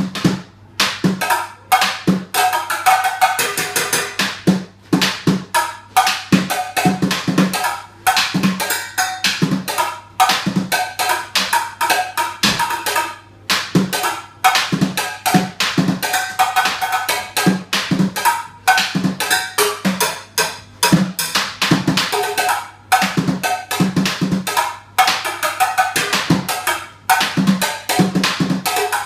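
Fast percussive drumming: quick, sharp hits in a repeating rhythmic pattern, broken by brief pauses every few seconds.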